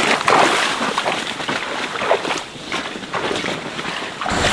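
Dense tall grass and weeds rustling and swishing as a person in chest waders pushes through on foot, in irregular brushing strokes. The sound changes abruptly just before the end.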